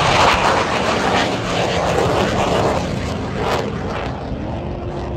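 Military aircraft flying past during an airshow demonstration: a loud, continuous roar of engine noise that slowly fades, with a faint sliding pitch in its later part.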